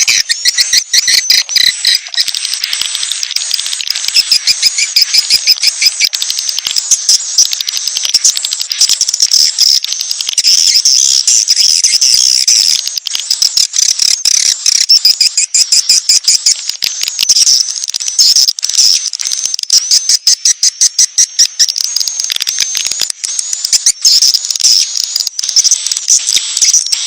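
Dense, very rapid high-pitched bird chattering and trilling, repeated without pause: a bird-luring call track meant to draw in young and wild birds.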